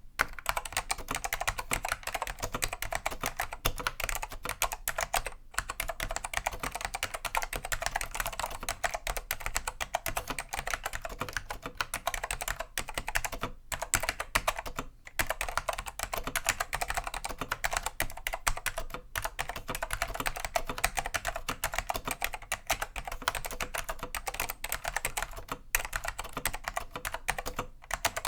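Continuous fast typing on a Dell AT101 keyboard with Alps SKCM Black 'pine' tactile switches: a dense stream of key clicks and clacks, broken by a few short pauses.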